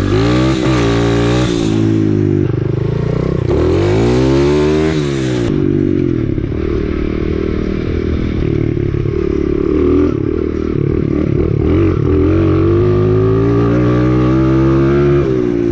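A 125cc dirt bike engine being ridden, its pitch rising and falling as the throttle is opened and closed. A rushing hiss sits over it for the first five seconds or so.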